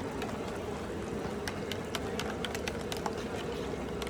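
Busy street ambience: a steady background din of traffic and activity, broken by many short, sharp clicks and clinks at irregular intervals.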